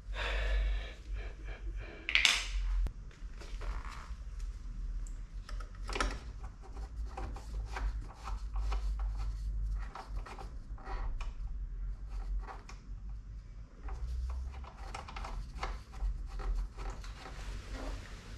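Irregular clicks, light knocks and scrapes of hand tools and hard parts being handled while working on a car door's window mechanism, with a steady low hum underneath.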